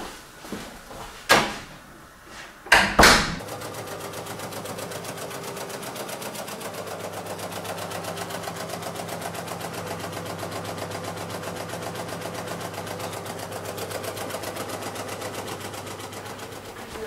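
Two loud bangs from a heavy steel door, then a steady, fast mechanical clatter over a low hum.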